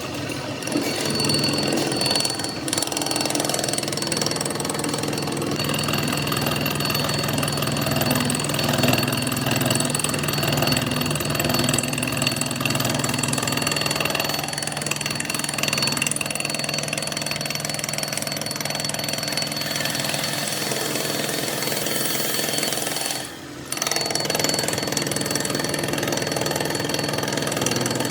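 A metalworking machine running steadily under load, with a constant hum and a thin high whine, briefly dropping away about 23 seconds in before picking up again.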